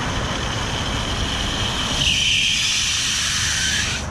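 Water rushing through a rebuilt 2-inch Hunter ICV irrigation valve as it shuts. A high hiss starts about halfway through, drops in pitch, and cuts off suddenly near the end as the diaphragm seats and the valve closes, with low traffic-like rumble underneath.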